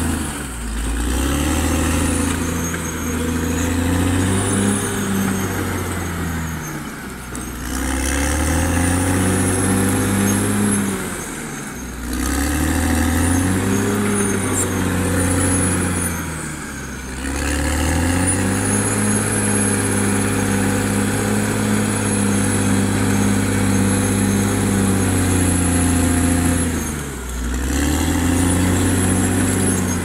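Caterpillar D6R XL bulldozer's diesel engine working hard as the blade pushes soil. Its pitch drops and climbs back every several seconds as the load and direction change, and a thin high whistle rises and falls with it.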